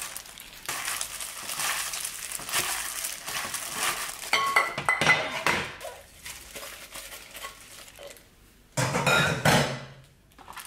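A plastic-gloved hand tossing noodles in a glass mixing bowl, the glove crinkling and rubbing, then the glass bowl clinking against a ceramic plate several times as the noodles are turned out. A louder scrape and knock about nine seconds in.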